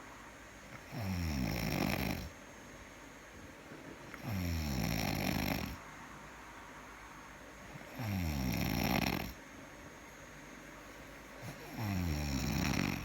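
Snoring: four slow, regular snores about three and a half to four seconds apart. Each lasts a little over a second and drops in pitch as it goes.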